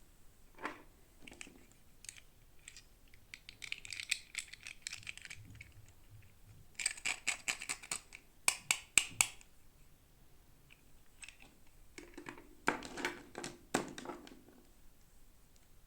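Hands handling plastic toy packaging and small plastic parts: quick clicks, taps and crinkles that come in three clusters, a few seconds apart, with single ticks between them.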